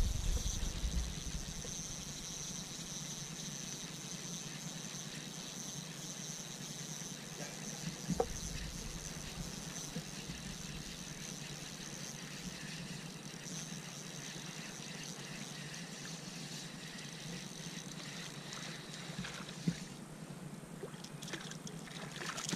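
Quiet water lapping at an inflatable kayak, with a faint steady high whine underneath; in the last couple of seconds a hooked fish splashes at the surface beside the kayak.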